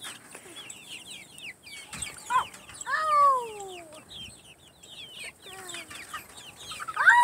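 Young chickens peeping and clucking in a rapid string of short, high, falling chirps, with one longer falling call about three seconds in and a louder call near the end.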